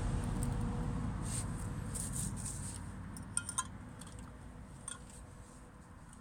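Distant road traffic, a low rumble that slowly fades away, with a few light clicks near the middle.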